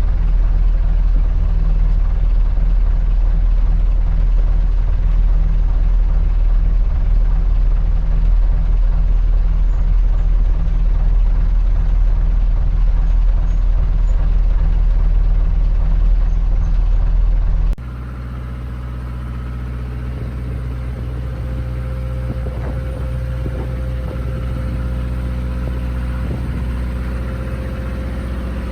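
Wooden motor cruiser's inboard engine running steadily under way, a loud low drone. About two-thirds of the way through it cuts abruptly to a quieter, more tonal engine hum.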